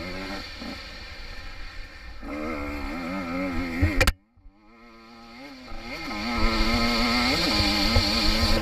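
Two-stroke enduro dirt bike engine revving up and down under the rider. About four seconds in there is a sharp click and the sound drops out almost completely. The engine note then swells back and holds steady at high revs.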